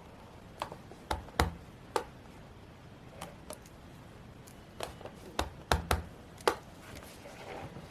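Stationery being handled on a desk during journal decorating: a string of separate sharp taps and clicks as small items are picked up and set down, with a short soft rustle of paper near the end.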